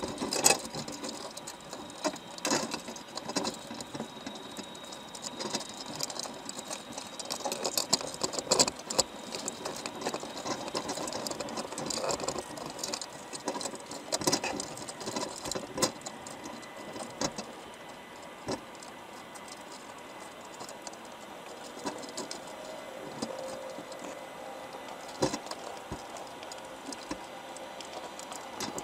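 Irregular clicks, taps and crackling of crabs' shells and claws knocking against each other and the wire of a crab pot, heard underwater. The clicking is busiest in the first half and thins out later.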